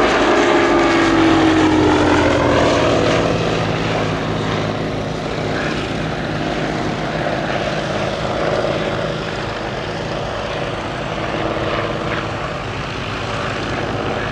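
Hawker Nimrod biplane's Rolls-Royce Kestrel V12 engine and propeller in a flying pass: the engine note drops in pitch over the first few seconds as it goes by overhead, then runs on steadily while slowly fading into the distance.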